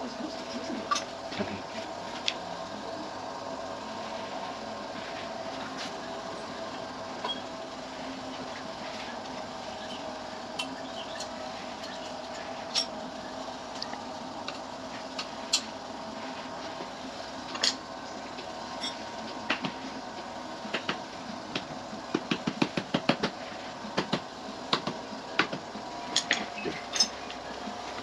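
Scattered metal clinks and taps of tools and fork parts being handled at a workbench, coming more often near the end, over a steady faint hum.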